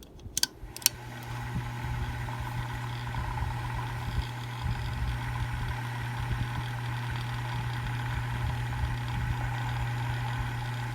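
Hampton Bay St. Clair ceiling fan switched on at high speed: a couple of sharp switch clicks, then a steady motor hum with a whir that builds over the first second or two and holds. Its motor bearings are freshly oiled.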